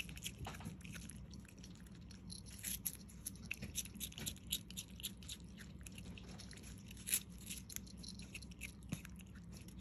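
A striped skunk biting and chewing a raw celery stalk: quick, irregular crunches as it tears into the stalk, with one louder crunch about seven seconds in.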